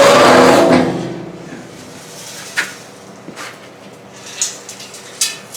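Heavy steel welding table being manhandled over onto its top: a loud scrape in the first second, then a few sharp separate knocks as it is shifted.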